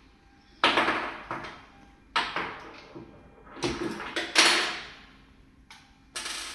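A replica pistol's slide being worked and taken off the frame: a handful of sharp clicks and short sliding scrapes, a few seconds apart.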